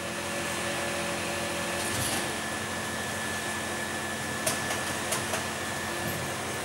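Arburg Allrounder 270 S injection moulding machine running: a steady mechanical hum with a thin high whine, and a few sharp clicks about four to five seconds in.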